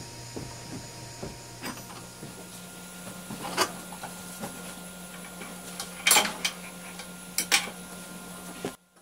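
Metal hand tools and parts clinking and knocking against each other and the metal lathe bed as they are picked up and set down: a few sharp clanks, the loudest about six and seven and a half seconds in, over a steady low hum. The sound cuts off abruptly near the end.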